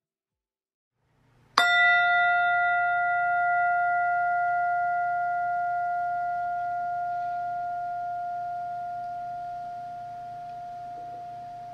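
A pair of tingsha cymbals struck once about a second and a half in, leaving a single clear ringing tone that fades slowly.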